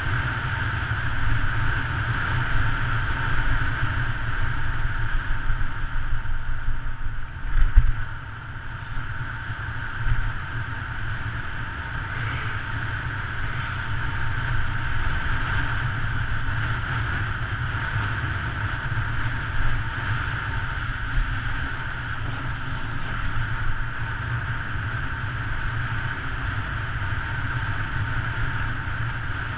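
Steady wind rush buffeting the microphone and tyre noise on asphalt from a road bicycle descending at speed, with one short jolt about seven and a half seconds in.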